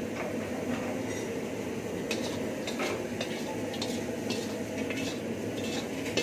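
Metal ladle scraping and clinking against a wok as chilli prawns and sauce are served out onto a plate, a series of short scrapes from about two seconds in. A steady kitchen hum runs underneath.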